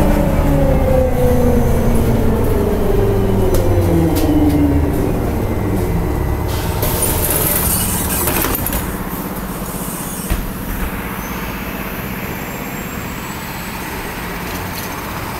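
Electric trolleybus slowing to a stop, heard from inside the cabin: its traction motor whine falls steadily in pitch over the first few seconds. About seven seconds in comes a loud hiss of released compressed air lasting over a second, then a single knock and steady street noise beside the standing trolleybus.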